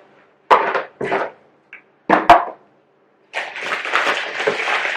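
Vacuum parts and packaging being handled: a few short knocks and scrapes, then a stretch of dense rustling and crinkling in the last second and a half.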